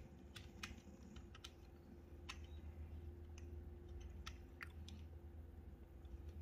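Faint computer keyboard and mouse clicks, about a dozen irregular taps, over a low steady hum.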